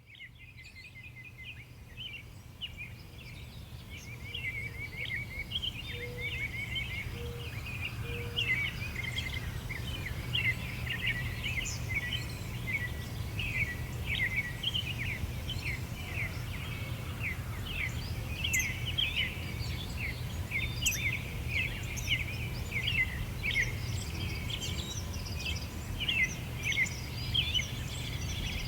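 A dense chorus of small birds chirping and twittering, with a steady low rumble underneath; it fades in from silence over the first few seconds. Three short low notes sound about six to eight seconds in.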